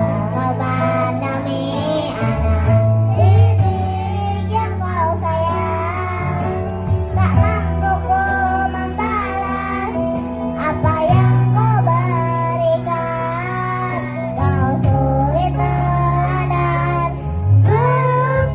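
Kindergarten choir of five- to six-year-old children singing with instrumental accompaniment, its steady bass notes changing every few seconds.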